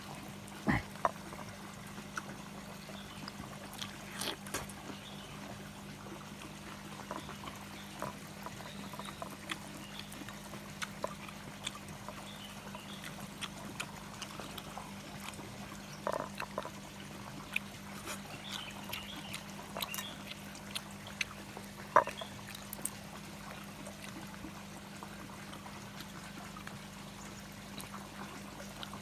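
Pond water trickling steadily over a constant low hum, with scattered small sharp clicks and taps; the sharpest comes about three quarters of the way through.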